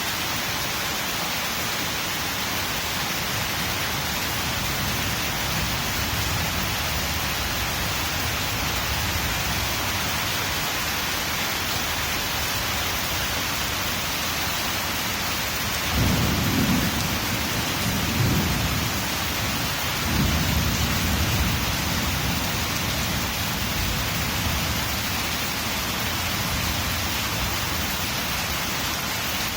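Heavy rain falling steadily. About halfway through, a roll of thunder sets in suddenly, swells three times over several seconds, then rumbles away into the rain.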